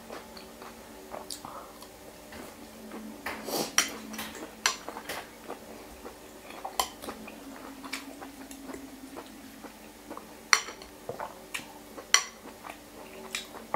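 Metal fork and spoon clinking and scraping against a glass bowl of noodle soup in irregular, scattered taps, a few sharper clinks standing out.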